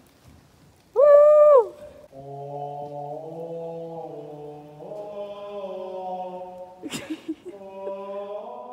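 A short, loud, high vocal call about a second in, then chant-like singing: several voices or notes held together as long steady tones that move in steps. A single sharp click near the end.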